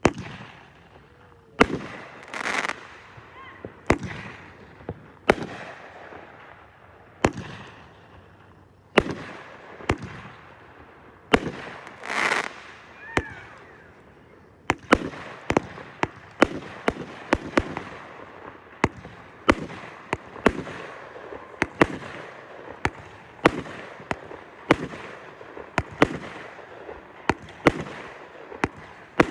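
Fireworks going off: a string of sharp bangs, at first about one every second or two, then coming faster and overlapping from about halfway through. Crackling bursts follow a couple of the bangs.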